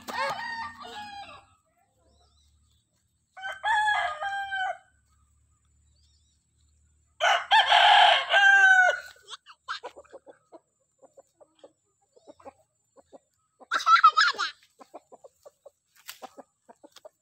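Rooster crowing four times, each crow about one to two seconds long with gaps between, the third the longest and loudest. Faint scattered clicks come in the later part.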